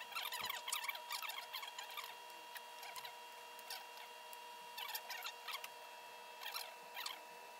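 Suit-trouser cloth being handled and folded on a table, rustling in short irregular spells that thin out for a while mid-way; a steady faint electrical whine sits underneath.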